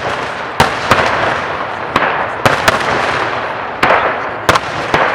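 Firework display: a quick series of sharp shell bursts, about eight in five seconds, over continuous crackling from the breaking shells.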